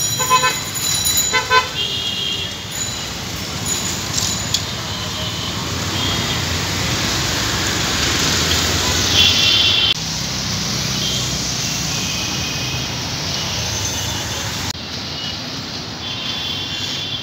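Busy street traffic running steadily, with several short, high-pitched vehicle horn honks near the start, around nine seconds in and near the end.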